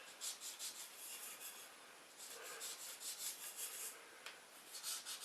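Faint, repeated short rubbing strokes of hand work on a part, with a slight lull about two seconds in.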